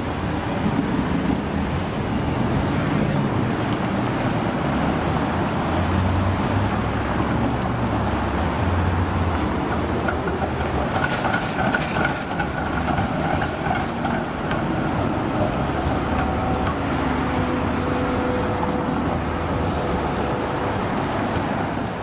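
Melbourne tram running over the railway level crossing amid steady road traffic, with a brief high tone about halfway through as it crosses.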